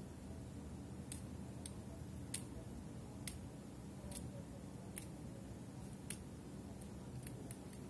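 Hobby-knife blade scraping a small plastic Mini 4WD propeller-shaft gear clean, making faint, sharp, irregular ticks about once a second.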